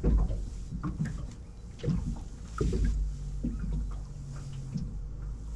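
Small waves lapping and knocking irregularly against the hull of a drifting motorboat, over a steady low wind rumble on the microphone.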